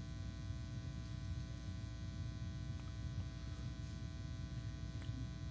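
Steady low-level electrical hum and buzz, with a few faint clicks.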